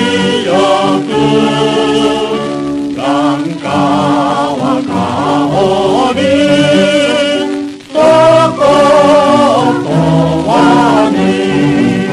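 Background music: a song with sung vocals, held wavering notes over a sustained accompaniment.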